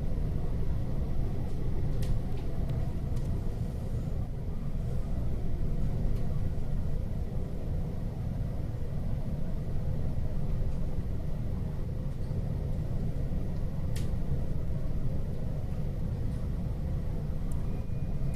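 Steady low rumble inside a Keihin-Tohoku Line commuter train carriage, with a faint steady high tone and a couple of sharp clicks, about two seconds and fourteen seconds in.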